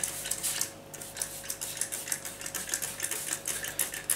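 Hand trigger spray bottle of window cleaner squirted rapidly and repeatedly, several short hissing sprays a second, wetting freshly laid silicone seams on the glass.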